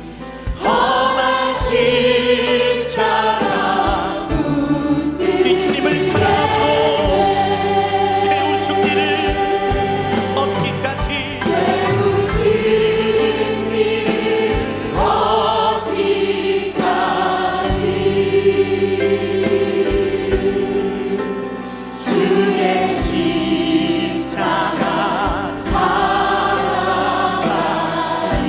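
Choir singing a Christian hymn with instrumental accompaniment, the sung lines phrased over sustained bass notes, with short breaks between phrases.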